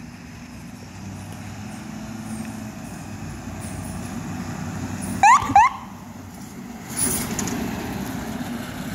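Ambulance approaching and driving past, its engine rumble growing louder, with two quick rising siren chirps about five seconds in. A swell of road noise comes as it passes near the end.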